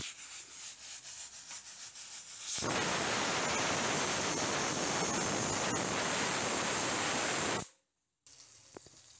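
Aluminium stovetop pressure cooker venting steam through its weight valve: a softer, uneven hiss, then about two and a half seconds in a loud, steady steam hiss that lasts about five seconds and cuts off suddenly. This is the cooker's whistle, the sign that it has reached pressure.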